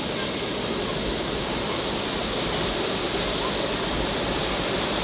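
Water of Dunn's River Falls rushing over its stepped rock cascades: a steady, even rush of white water.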